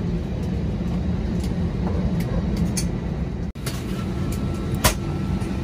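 Steady low rumble of a vehicle interior, with a few light clicks. The sound drops out for an instant about three and a half seconds in.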